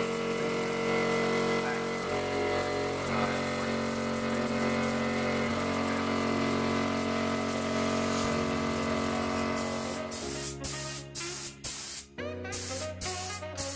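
Background music over the hiss of a compressor-fed gravity-feed spray gun spraying primer onto a fibreglass boat hull. In the last few seconds the hiss breaks into short bursts.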